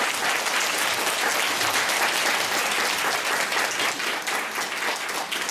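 Audience applauding, many hands clapping together in a steady wash.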